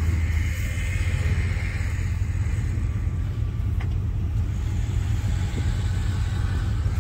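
Pickup truck engine running steadily, a low rumble.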